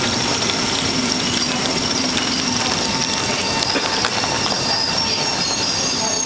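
Allegro Sm6 electric train moving on the rails, a steady rumble of wheels with a thin, high wheel squeal held throughout.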